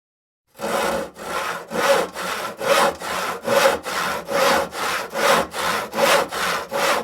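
Hand saw cutting through wood in steady back-and-forth strokes, about two strokes a second, starting about half a second in.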